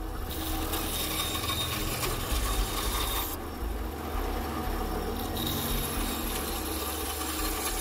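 Benchtop band saw running, its blade cutting through a block of wood with a steady motor hum under the rasp of the cut. The cutting noise eases for about two seconds midway, then picks up again.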